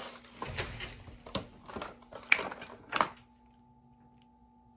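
Plastic shopping bag rustling and crinkling as a boxed camera is pulled out of it, with a few sharper crackles, stopping about three seconds in. A faint steady hum remains after.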